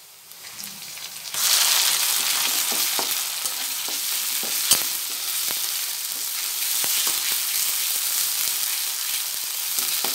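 Ground ridge-gourd-peel paste tipped into hot oil with fried onion and garlic in a metal wok. It starts sizzling loudly about a second and a half in as the wet paste hits the oil, and keeps sizzling while it is stirred, with a flat metal spatula clicking and scraping against the wok. The sizzle is the water in the paste frying off.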